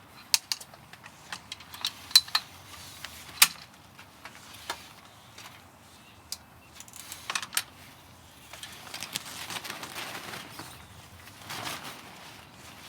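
Shower-tent hardware being handled as the tent is opened: scattered sharp clicks and clacks of ring pulls and fittings. About nine seconds in, fabric rustles as the tent is unfolded.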